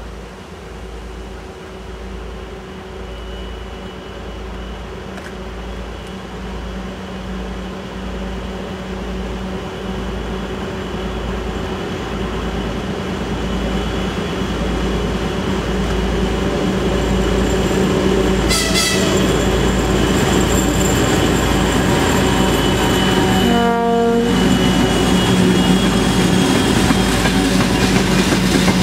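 A 2M62 twin-section diesel locomotive with its two-stroke diesel engines running under load, a steady throb growing louder as it approaches and passes at the head of a freight train. It gives a brief high whistle about two-thirds of the way in and a short horn blast a few seconds later. The wagons' wheels clatter on the rails near the end.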